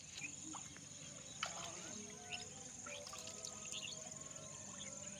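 Insects trilling continuously at a high pitch, with scattered short bird chirps over it.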